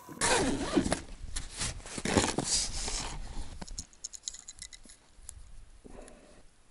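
Close handling noise from a winter fishing rod and its gear: rustling and scraping strokes, loudest in the first three seconds, then a few light clicks.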